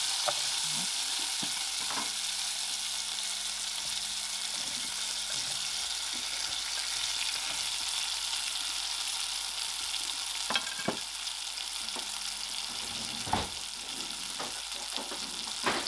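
Sliced onions sizzling in hot melted butter in a saucepan: a steady frying hiss, with a few short sharp clicks along the way.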